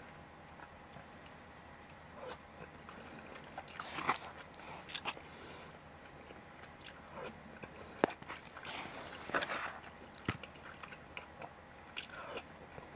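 A person chewing a mouthful of rice and hashed beef, with soft wet mouth sounds and a few short sharp clicks.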